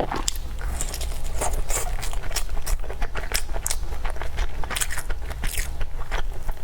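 Close-miked eating: biting and chewing food, with a quick irregular run of crisp crunches, crackles and wet mouth clicks.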